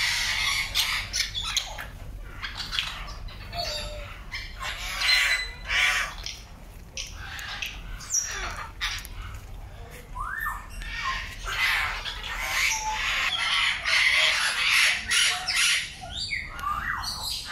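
Parrots squawking, with many harsh calls overlapping and densest near the end.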